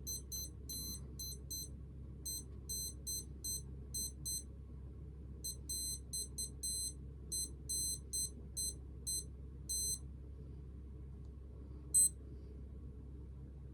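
Digital sports watch beeping as its buttons are pressed to set the time: quick runs of short, high beeps in several groups, then a single beep near the end.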